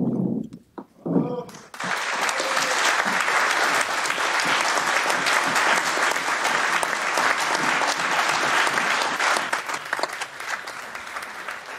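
A room full of people applauding, breaking out about a second and a half in and dying down toward the end, greeting the proclamation of a newly elected mayor.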